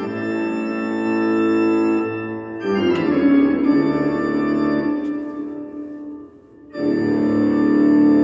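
Organ music: long held chords, changing about two and a half seconds in, dying away around six seconds, then a new chord entering and holding.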